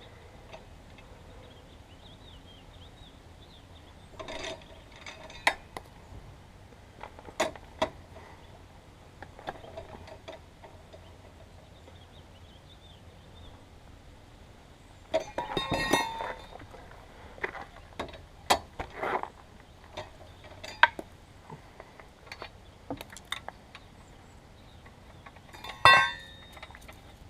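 Scattered metallic clinks and knocks of tools and wheel hardware being handled during a tire change, with a busier run of knocks about halfway through and a louder knock near the end.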